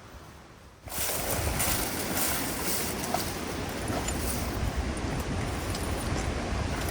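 Wind buffeting the microphone: a loud rushing noise with a gusting low rumble that cuts in abruptly about a second in.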